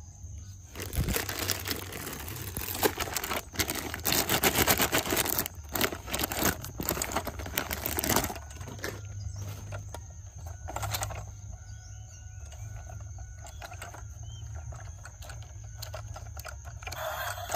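Rustling, crackling handling noise with many sharp clicks for about eight seconds, then quieter with only occasional clicks, over a steady low hum.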